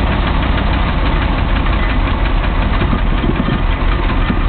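A 1969 Fargo truck's 318 small-block V8 idling, heard close under the hood, with a light, fast, even tick over the running. It is running for the first time after sitting for years.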